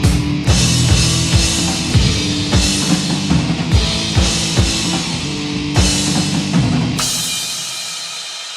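Rock band playing the song's instrumental ending: drum kit with bass drum and snare driving a steady beat under sustained bass notes. About seven seconds in, a final full-band hit with cymbals rings out and fades.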